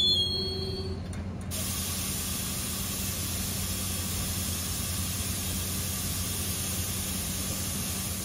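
NJ Transit passenger train coming to a stop: a thin wheel squeal dies out in the first second, then a steady hiss of air venting from the train's air brakes starts about a second and a half in, over a low steady hum from the train.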